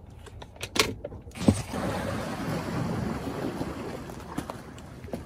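A few sharp clicks and knocks in the first second and a half. Then a steady outdoor wash of light wind and water moving against rocks.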